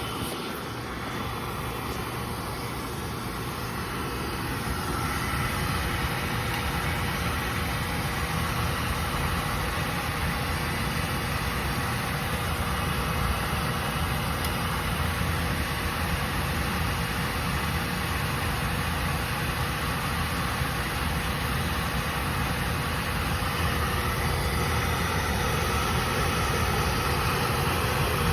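Oil burner on a Burnham oil boiler running after a call for heat, its motor and blower giving a steady rushing hum that comes up a little over the first few seconds.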